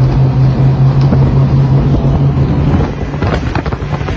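Speedboat's engines running hard under way, a loud steady low drone with wind rushing over the microphone. About three seconds in the drone drops back and gusty wind and water noise takes over.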